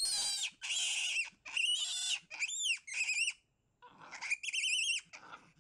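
Capuchin monkey calling: a rapid series of short, high-pitched warbling calls, with a brief pause a little past halfway.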